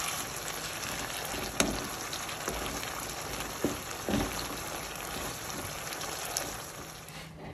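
Green peppers and datterino tomatoes sizzling in hot oil in a frying pan while being stirred with a wooden spoon, with a few sharp knocks of the spoon against the pan. The sizzle drops away near the end.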